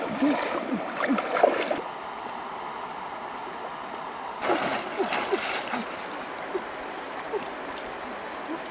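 Water splashing as a person wades through a shallow river, settling after about two seconds into the steady sound of the stream flowing, with a second short burst of splashing about four and a half seconds in. A few short arched animal calls come and go over the water sound.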